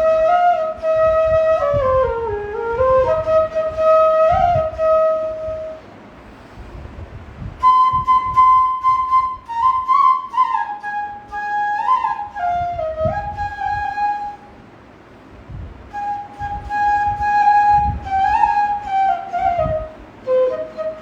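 Bansuri (bamboo flute) playing a slow melody in three phrases with short pauses between them, the notes sliding smoothly from one pitch to the next.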